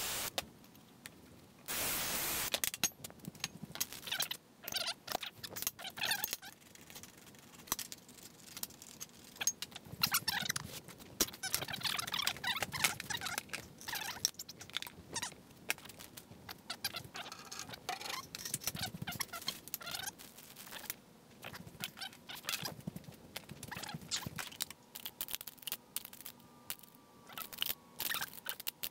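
A 24-volt cordless drill runs for about a second, drilling out a metal cover. Then come many scattered clicks, taps and clinks of hand tools and small metal parts being handled, thickest near the end as sockets are picked through in a tool drawer.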